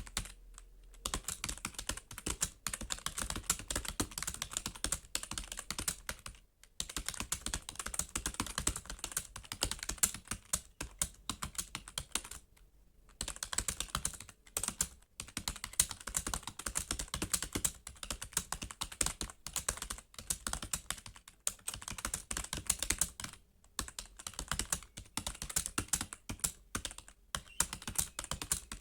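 Computer keyboard keys being typed on fast and continuously, with brief pauses now and then.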